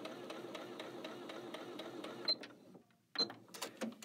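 Janome Skyline 6 computerized sewing machine stitching steadily until a little past two seconds in, then stopping. Two short high beeps follow about a second apart, with a few mechanical clicks after the second.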